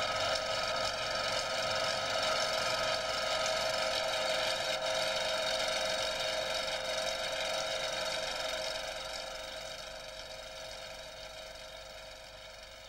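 A steady droning chord of several held tones from the opening title music, fading out slowly over the last five seconds.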